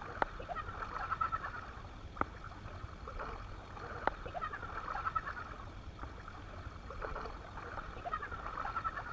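Bursts of high, chattering, cackling calls about every two seconds over a low steady rumble, with a few sharp clicks; the uploader presents it as the shrill cackling laughter of a forest ghost.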